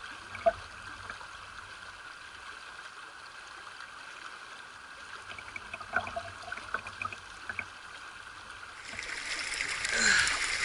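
Shallow trout stream running steadily around a wading angler, with a few sharp clicks. Near the end the water sound grows louder and closer, with splashing.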